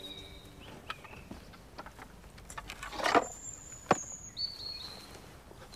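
Quiet outdoor background with a few sharp knocks and rustles of handling, and thin, high, steady whistling tones that come and go.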